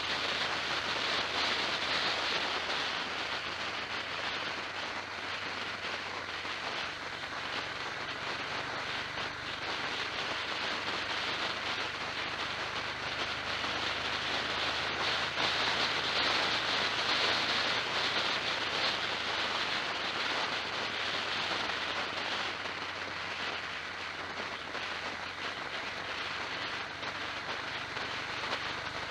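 Steady rushing noise of a vehicle on the move, wind and road noise, swelling and easing gently, with a faint low hum underneath.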